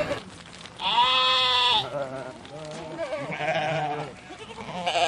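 Farm animal bleating: one loud, long bleat about a second in, followed by two shorter, fainter bleats.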